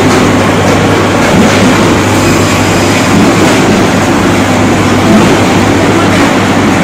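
Double-motor spindleless rotary veneer lathe running, peeling a rubberwood log into veneer: a steady low hum under dense, even mechanical noise.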